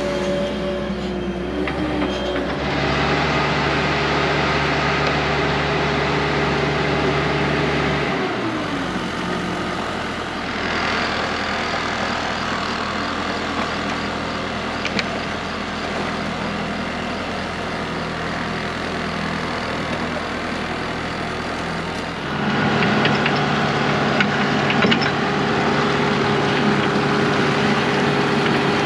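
Excavator's diesel engine running steadily with a deep hum, its note dropping about eight seconds in and growing louder again about 22 seconds in, with a few light knocks.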